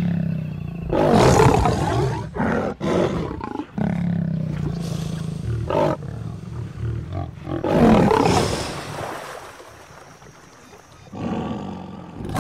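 Male lion snarling at a gaping crocodile, a threat display: several loud, rough snarls, the loudest about a second in and again about eight seconds in, with a quieter spell near the end.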